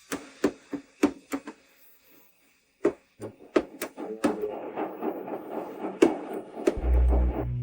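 A series of sharp knocks and taps, a short pause, then more taps and a rasping, rattling scrape, typical of hand work on car parts. A heavy low bass comes in near the end.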